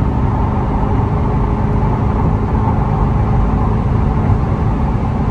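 Chevrolet C8 Corvette cruising fast on the freeway, heard from inside the cabin: a steady engine drone mixed with road and wind noise, holding at one pitch.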